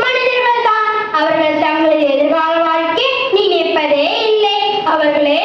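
A child singing a melody, holding each note about half a second and moving up and down in steps.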